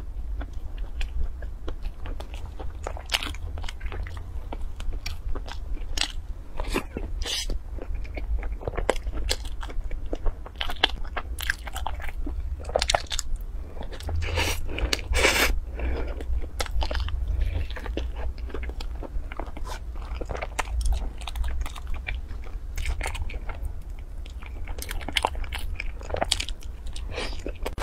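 Close-miked eating sounds: crisp bites and chewing of baked bread rolls dipped in a thick purple sauce, with many irregular crunching clicks.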